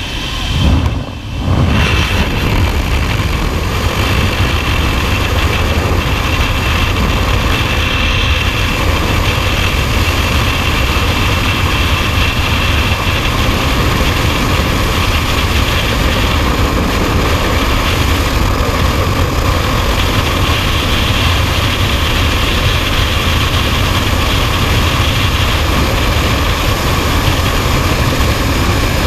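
Loud, steady rush of freefall wind buffeting a helmet-mounted camera's microphone during a skydive, after a brief break about a second in as the jumpers leave the aircraft door.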